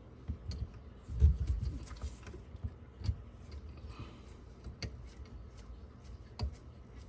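Scattered clicks, taps and knocks of hands handling faucet fittings under a kitchen sink, with a dull thump about a second in.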